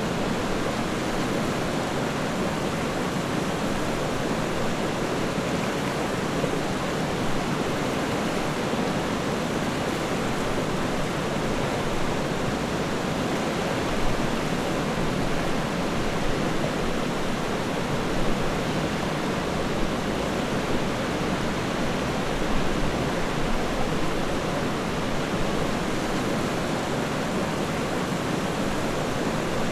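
River water flowing and rushing steadily over rocks, an even, continuous rush with small splashy peaks now and then.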